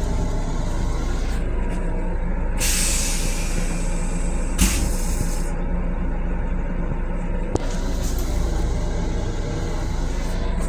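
Stainless-steel toilet of a Long Island Rail Road M7 railcar flushing: a loud hiss of water and air starting a few seconds in and lasting about three seconds, with a sharp thunk midway. The steady rumble of the train runs underneath.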